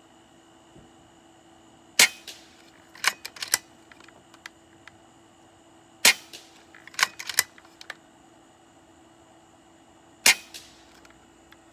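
Three shots from an AGT Vulcan V3 PCP air rifle firing pellets, tuned down to low power, about four seconds apart. A few quick clicks follow the first two shots, likely the action being cycled to load the next pellet.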